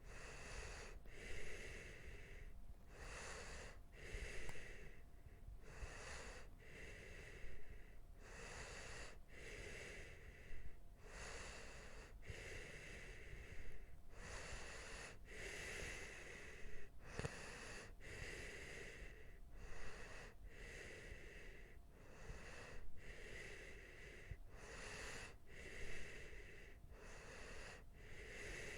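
A sleeping person breathing heavily and noisily, each breath in and out audible as a pair of rasping sounds, repeating evenly about every two and a half seconds.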